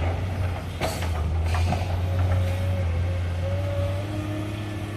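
Heavy diesel machinery running steadily, a deep engine drone with a faint wavering whine over it. There is a short knock about a second in.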